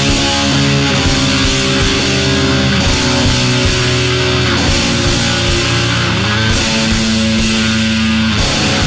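Math rock played by a full band: electric guitars over bass and drums, loud and dense, with the chords shifting every two seconds or so.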